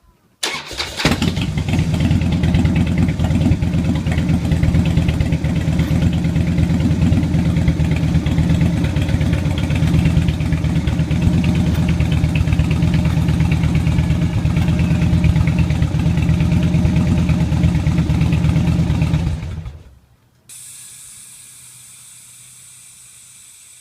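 Harley-Davidson Dyna Street Bob's Twin Cam 96 V-twin starting on a short crank through Vance & Hines Big Shots exhaust, then idling steadily for about nineteen seconds before being switched off. A few seconds after shutdown a much quieter steady hiss with a high whine starts.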